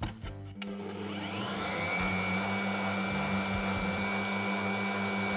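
A few short clicks, then an electric stand mixer starts about half a second in, its motor whine rising as it comes up to speed and then running steadily while the beater whips egg whites and sugar into stiff meringue. The mixing is continued because the sugar is not yet fully dissolved.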